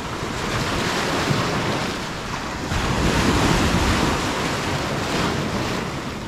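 Ocean surf washing onto the beach, with wind rumbling on the microphone. The rush swells about a second in and again, louder, about three seconds in.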